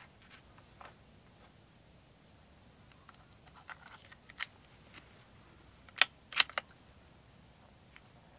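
Metallic clicks from a CZ 457 Royal .22 LR bolt-action rifle being readied: a few light clicks about four seconds in as it is handled near the magazine, then three sharp clicks in quick succession about six seconds in as the bolt is worked to chamber a round.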